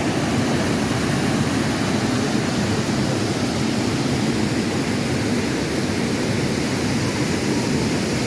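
Waterfall: a steady, loud rush of falling water with no change.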